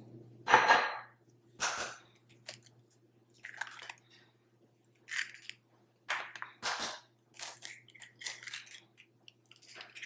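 A ceramic mug knocks down onto a stone countertop, followed by a series of sharp knocks and clicks as eggs are cracked against the mug. The loudest knock comes about half a second in.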